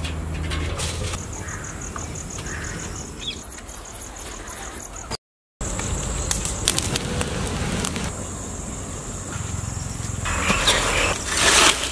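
An insect trills in fast, even pulses during the first few seconds. Near the end comes a louder stretch of crackling from a wood fire burning around a steel drum.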